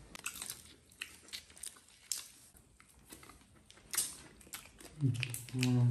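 Hairy crab being picked apart and eaten by hand: scattered small clicks and crunches of shell, with chewing.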